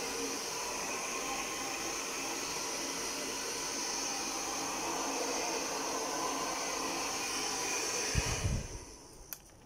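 Handheld hair dryer running steadily, its fan and motor giving a whooshing hiss with a faint whine, as it blows on a wet dog's fur. It is switched off about a second before the end, with a brief low thump as it stops.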